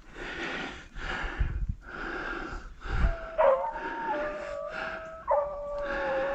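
Beagles baying on a rabbit's track, with long drawn-out bawls from about halfway through. Under them, a rhythmic rustling or breathing comes about once a second.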